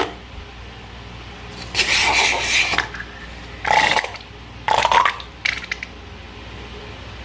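Four short bursts of rubbing and scraping from slime and a balloon being handled, the first lasting about a second, with quiet between them.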